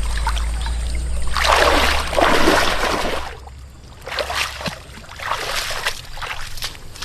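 Water splashing in several bursts, the longest and loudest about a second in, then a run of shorter splashes; a low rumble sits under the first two seconds.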